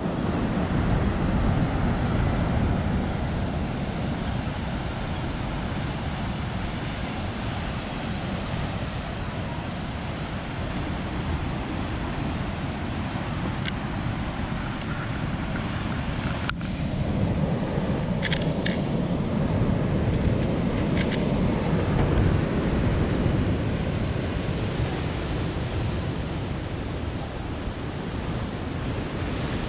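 Ocean surf washing ashore in a steady rush, with wind on the microphone. A sharp click comes about halfway through, and a few faint short high-pitched sounds follow soon after.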